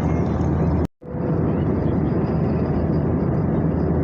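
Airliner cabin noise in flight: a steady low rumble with hiss from the engines and airflow. About a second in it cuts out almost completely for a moment and then fades back up.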